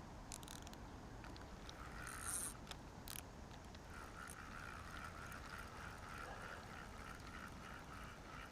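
Faint waterfowl calling, a fast run of repeated short calls from about four seconds in, with a brief scuffing noise about two seconds in.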